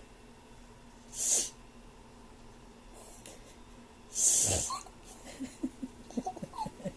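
A person sniffling hard with a runny nose from a cold, twice: about a second in and again about four seconds in. After the second sniff comes a run of short, quick giggles from a sleeping young child.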